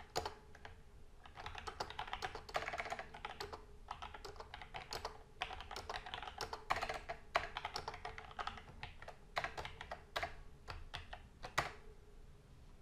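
Typing on a computer keyboard: uneven flurries of key clicks with short pauses between them, ending with one sharper keystroke near the end.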